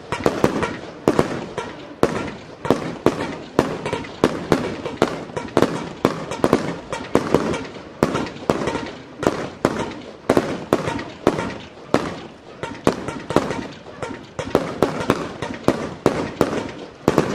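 A fireworks show's aerial shells going off in a rapid, unbroken string of bangs, about two or three a second.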